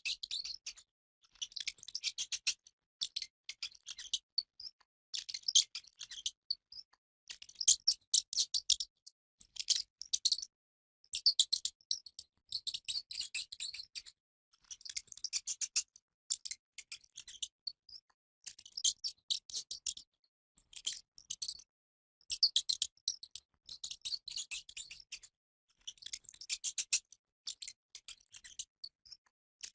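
Rat squeaking: bursts of rapid, very high-pitched chirps, each burst lasting a second or two, repeated with short pauses in between.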